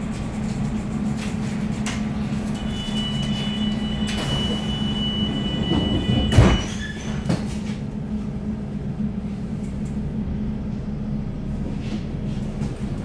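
Underground train standing at a station with its steady electrical hum. A high door-closing warning tone sounds for about four seconds, then the sliding doors shut with a loud thump about six seconds in.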